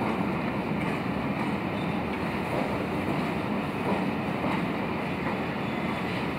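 Steady rumbling noise of a steam-hauled passenger train rolling slowly over station pointwork, behind the A1 Pacific locomotive 60163 Tornado.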